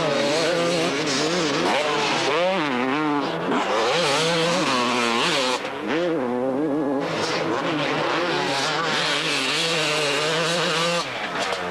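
250cc two-stroke motocross bikes at full racing revs, the engine pitch repeatedly rising and falling as the riders accelerate, shift and roll off, with overlapping engine notes at times.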